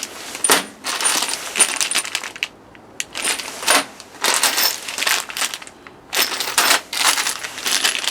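New stainless steel bolts, screws and washers clinking together as they are handled, in a series of short jingling bursts with faint metallic ringing.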